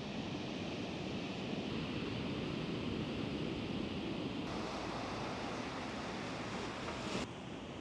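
Large ocean waves breaking in a steady rushing wash, with wind noise on the microphone. The sound changes abruptly about four and a half seconds in and again near the end, as different stretches of surf are cut together.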